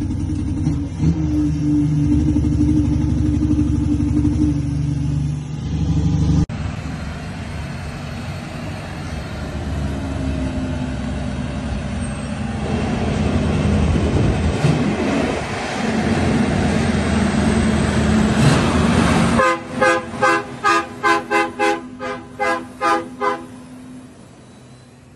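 Heavy diesel truck engine running with a steady low drone. After a cut it gives way to a rushing noise that builds in loudness. After another cut comes a run of about ten short horn toots, roughly two and a half a second, fading away near the end.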